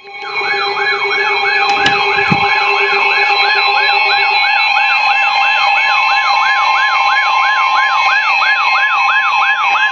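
Weather alert radio sounding its siren-style alarm for a severe thunderstorm warning: a loud, fast whooping pitch sweep repeating about two and a half times a second over steady alert tones. A lower steady tone drops out a little over four seconds in, and there are a couple of clicks about two seconds in.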